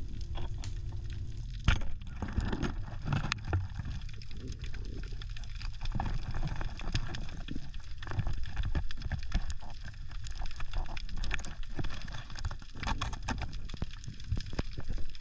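Underwater sound picked up by an action camera during a speargun hunt in a rock crevice: a constant muffled low rumble with scattered clicks and knocks, and one sharp knock about two seconds in.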